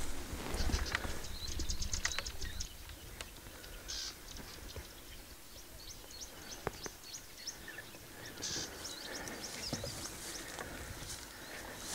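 Small birds chirping, with quick runs of high ticking calls and scattered sharp clicks and rustles in the grass.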